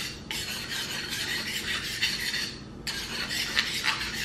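A steel kitchen knife is drawn along a honing steel in long rasping strokes. There are short breaks between strokes, and a few light metallic rings near the end.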